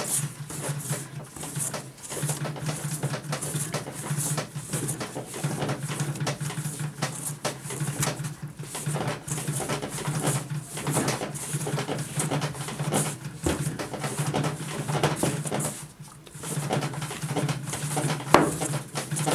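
Soft yeast dough being kneaded by hand in an enamel bowl: repeated irregular squishing, pressing strokes of palm and fingers on the dough and the bowl, over a steady low hum.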